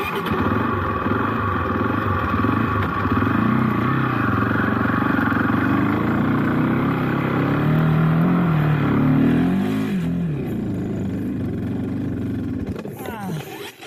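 Off-road trail motorcycle engine running, its pitch rising and falling with the throttle about seven to ten seconds in. It starts abruptly and cuts off sharply near the end.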